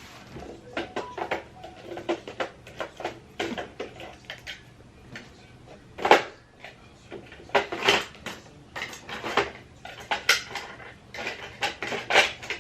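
A run of irregular clinks and knocks from hard objects being handled and set down, with the sharpest knocks about halfway through and near the end.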